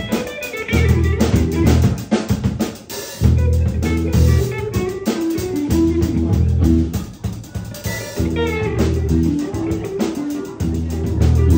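Live band playing an instrumental passage: electric guitar playing lead lines over a drum kit with snare hits, and a bass line.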